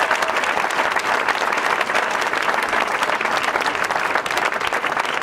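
A crowd applauding steadily, a dense clatter of many hands clapping.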